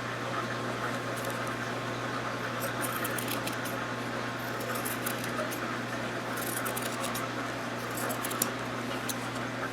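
Scissors snipping fabric, trimming a quilt patch: a few quick runs of short clicks over a steady low hum.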